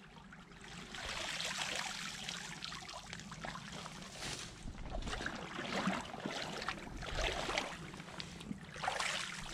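Creek water splashing and trickling as sticks and mud are pulled out of a beaver dam, with irregular small snaps and knocks of wood throughout.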